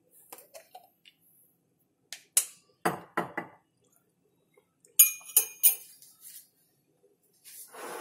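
A plastic honey jar being opened: a few short clicks and knocks of its screw lid about three seconds in, then three sharp ringing metal clinks about five seconds in, and a brief rustle near the end.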